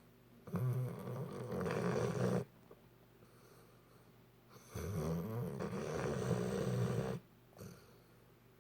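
Saint Bernard dog snoring: two long snores of about two seconds each, the second starting about halfway through, with quieter pauses between.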